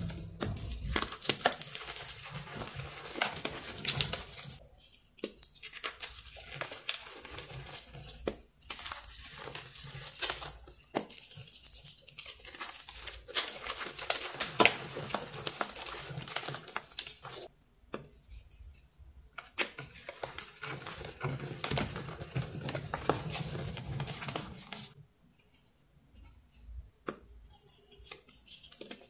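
Hands crushing and crumbling dyed chalk blocks, giving dense, crisp crunching and crackling with sharp snaps, broken by a few short pauses.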